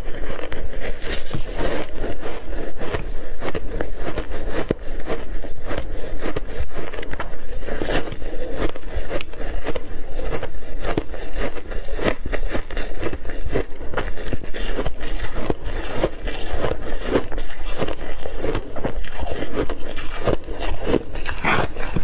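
Block ice with mixed berries, heavily coated in matcha tea powder, being bitten and chewed in big bites: a continuous run of sharp crunching and crackling as the ice breaks between the teeth.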